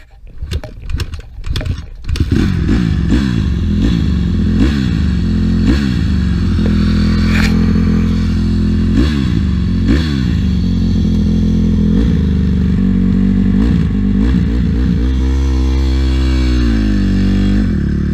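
A dirt bike crashing: about two seconds of clattering and scraping, then its engine running loudly with repeated quick throttle blips. Near the end the engine note drops and climbs again as the bike pulls away.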